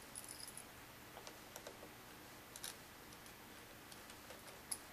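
Faint, scattered light clicks and taps from hands handling a loose laptop LCD panel, with a sharper click near the end.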